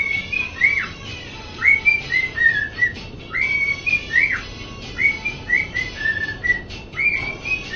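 Cockatiel whistling a tune: the same short phrase of clear rising and falling notes, repeated about five times.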